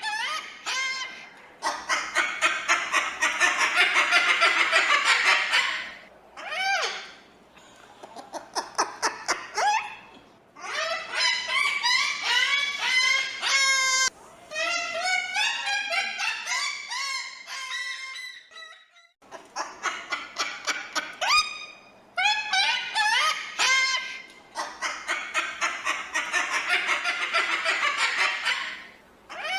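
Cockatoo calling: runs of short rising squawks, a long harsh screech about two seconds in and again near the end, and between them a stretch of warbling, whistled and chattering calls.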